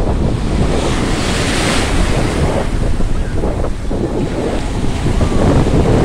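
Small waves breaking and foaming in the shallows of a sea shore, with wind buffeting the microphone throughout. The wash of surf swells into a louder hiss about a second in.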